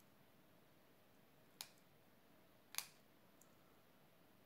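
Small scissors snipping into the end of a paper straw: two short, sharp snips about a second apart, with a fainter tick after them, over near silence.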